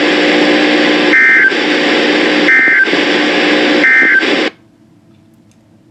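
Weather radio receiver hissing with static on a noisy signal, broken three times by short two-tone data bursts: the SAME end-of-message code that closes a weather alert. The receiver's audio cuts off sharply after the third burst.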